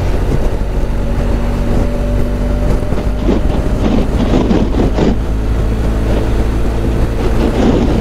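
BMW R 1250 GS Adventure boxer-twin motorcycle running at a steady cruise, heard through the rider's helmet microphone under wind and road noise.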